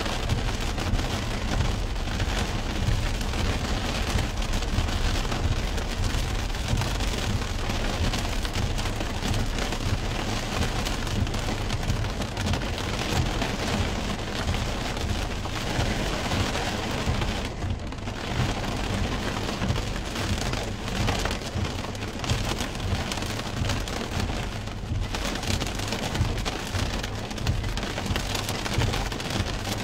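Heavy rain falling on a car's roof and windshield, heard from inside the cabin as a dense, steady downpour.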